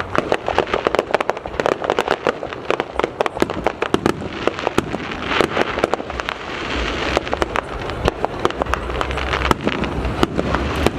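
Aerial fireworks show: a dense, rapid run of crackling bursts and sharp pops, with a sizzling hiss in the middle and a low rumble of bigger shells later on.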